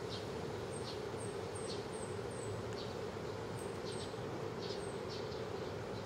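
Garden ambience: small birds chirping, with short high notes about once a second and quick runs of very high, falling chirps, over a steady buzzing drone.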